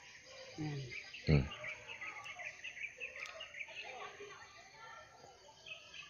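A bird chirping in a quick run of short high notes for about two seconds. Just before it come a brief murmur and a louder falling hum from a person's voice.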